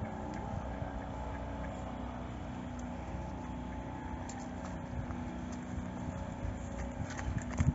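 Steady engine hum with a low rumble, and a few sharp knocks near the end.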